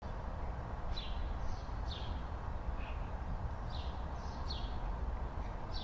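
Outdoor ambience: a steady low rumble with a small bird chirping now and then, short falling chirps scattered through.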